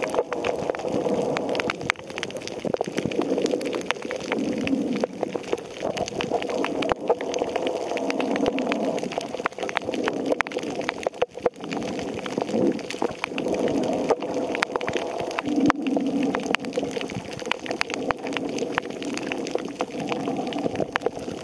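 Underwater sound picked up by a camera held below the surface: a muffled, steady watery rush with frequent sharp clicks throughout.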